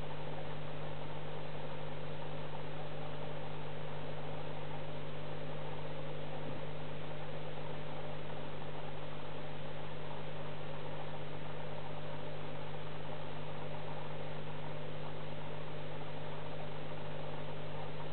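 Aquarium pump humming steadily: a constant low hum with fainter higher tones and a light hiss over it.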